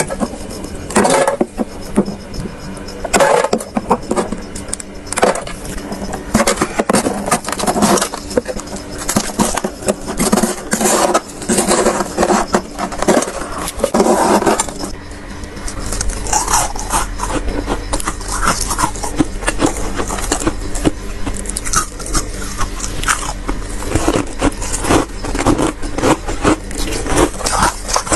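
Thick freezer frost being scraped and crunched, a run of rough scrapes and crackles; a low steady hum comes in about halfway through.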